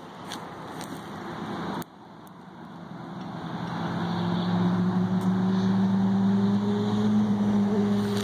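An engine's steady hum, fading in about three seconds in and growing steadily louder while its pitch edges slightly higher, as it draws nearer. Before it, a rushing hiss cuts off suddenly twice.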